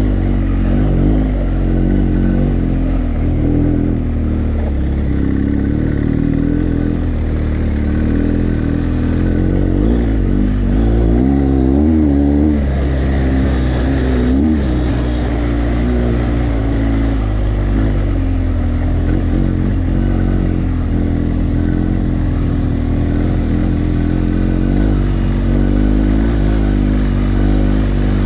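BMW GS adventure motorcycle's boxer-twin engine running steadily on a dirt track, its pitch rising and falling with the throttle, most noticeably about halfway through.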